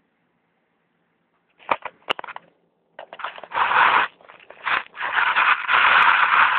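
Loud crackling, scraping rustle right against the microphone in uneven bursts, after a few sharp clicks about two seconds in.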